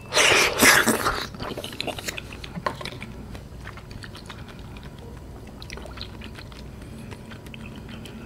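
A brief loud noise in the first second, then soft, scattered mouth sounds of a person chewing and eating a spoonful of strawberry pudding.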